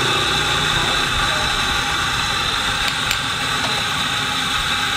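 Steady machine noise from espresso-bar coffee equipment: an even, loud hiss and whir with no clear pitch and no breaks.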